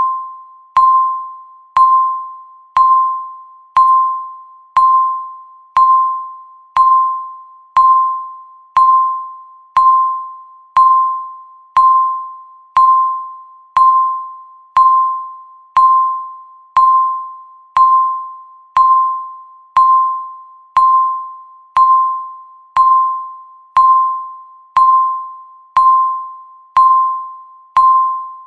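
Countdown timer's per-second tick beep: a single mid-pitched electronic tone struck once every second, each with a sharp click at the start and fading away before the next, marking the seconds counting down.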